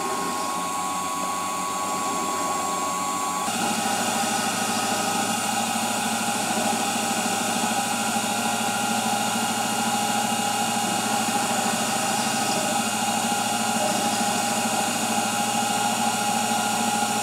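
Emco Unimat SL miniature lathe running steadily, its belt-driven motor and spindle giving a constant whine while the tool bit turns a small rod to a 3-degree taper. The pitch of the whine shifts suddenly about three and a half seconds in.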